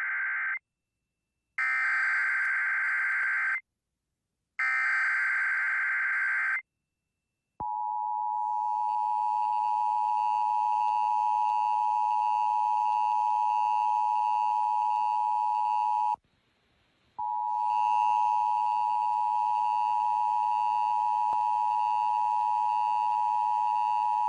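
Emergency Alert System test: the SAME digital header, heard as three warbling data-tone bursts about two seconds long and a second apart, the first already under way. It is followed by the two-tone EAS attention signal, a steady dual tone that stops after about eight and a half seconds and starts again a second later.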